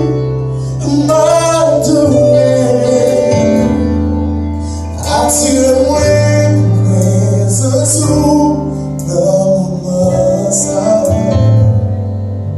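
Gospel song: a man singing into a microphone over an instrumental accompaniment with a steady bass line, heard through a church sound system.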